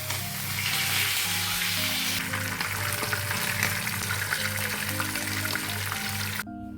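Food frying in hot oil, a dense crackling sizzle that stops abruptly near the end, over background music with a steady beat.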